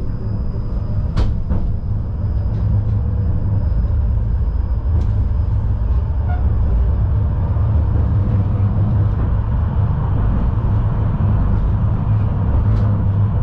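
Tram running along the rails, heard from inside the car: a steady low rumble of wheels and running gear that swells slightly after a few seconds. A few sharp clicks come through, and a thin high whine fades out about two-thirds of the way through.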